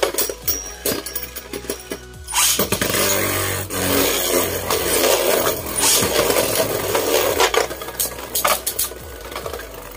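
Two Savior Perseus Beyblade Burst tops spinning in a plastic stadium, with rapid clicking and knocking as they collide and grind against each other and the stadium walls. A short lull comes about two seconds in, then loud spinning and clashing again with a whirring hum.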